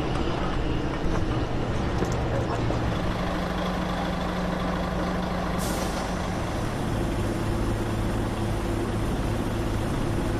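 A heavy truck's engine running steadily, with a short burst of air hiss about six seconds in.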